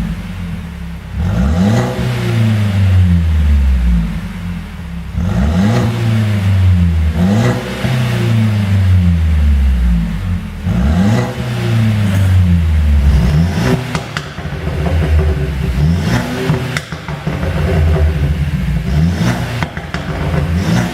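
Mercedes-Benz C200's engine revved again and again, each quick rise in revs falling away over a couple of seconds, with exhaust pops and crackles on the overrun from a pop-and-bang tune. The crackling is most frequent in the second half.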